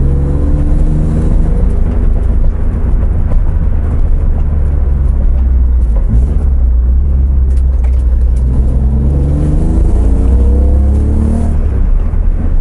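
2001 BMW 330Ci's 3.0-litre straight-six heard from inside the cabin, running through stainless long-tube headers and a Magnaflow exhaust, over a steady low drone. The engine note climbs in pitch as the car accelerates over the first couple of seconds and again from about eight seconds in, then falls away near the end.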